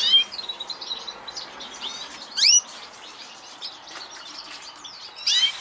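Caged canaries and finches chirping: three loud bursts of short, sharp high calls, near the start, around halfway and near the end, over softer continuous twittering.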